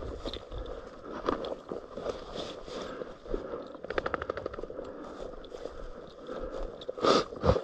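Crackling and rustling of dry field cover, with scattered clicks, as someone walks through it. A short fast rattle comes about four seconds in, and a louder brief rustle near the end.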